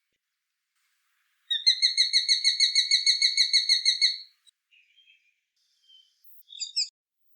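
Sharp-shinned hawk giving its high-pitched, frantic kik-kik-kik call: a rapid run of about 18 sharp notes, roughly six or seven a second, starting about a second and a half in. A short burst of two or three more notes follows near the end. This call is used as an alarm, in courtship, and by young birds about to fledge.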